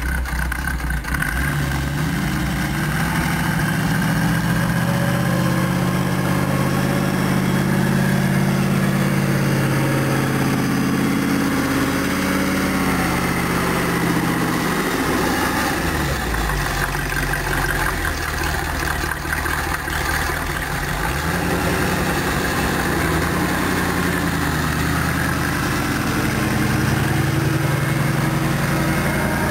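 Chrysler 318 small-block V8 of a homemade articulated 4x4 tractor running, its pitch rising and falling as it is revved up and eased off while the tractor plows snow. It climbs through the first dozen seconds, drops back around the middle and rises again near the end.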